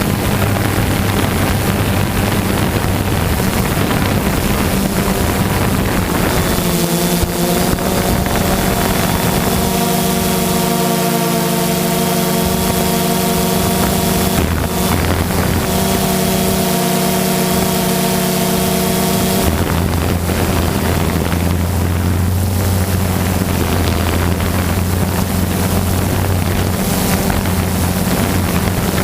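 Propeller aircraft engine running steadily, with a fuller, many-toned sound for about twelve seconds in the middle, and wind noise on the microphone.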